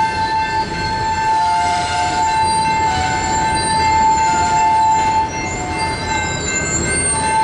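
Covered hopper cars' steel wheels squealing on the rail as a freight rolls by: a loud, ear-piercing steady screech, with fainter higher squeals shifting above it over the rumble of the cars. The main screech drops out briefly about six seconds in and comes back near the end.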